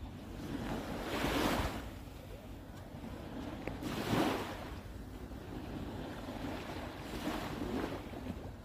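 Small waves washing in on a sandy beach with an incoming tide, rising and falling three times about three seconds apart, with a low rumble of wind on the microphone.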